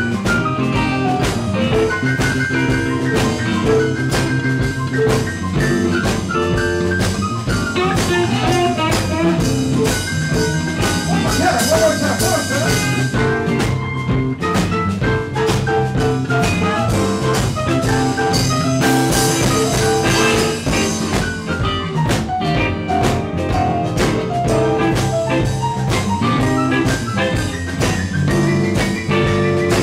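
Live blues band playing an instrumental passage without vocals: electric guitar over a steady drum-kit beat.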